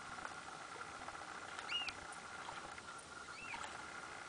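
Two short, high squeaky bird calls, each rising and falling, about a second and a half apart, over a steady faint hum.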